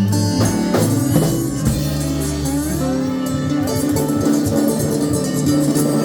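Blues band playing an instrumental passage: guitar over bass and drums with cymbal or tambourine hits. The low bass note drops out about halfway through.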